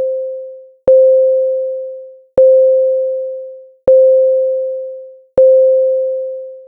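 Computer-generated school class bell: a pure C5 tone that starts sharply and dies away over about a second and a half, repeated at an even pace. Four new strikes follow the fading tail of the one before, the signal for the start of class.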